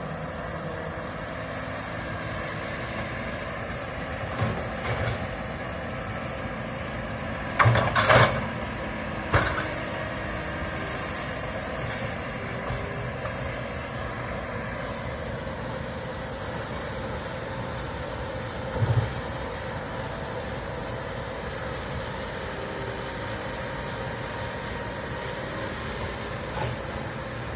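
Komatsu excavator's diesel engine running steadily, with a few loud knocks on top, the loudest a pair about eight seconds in and another about eleven seconds later.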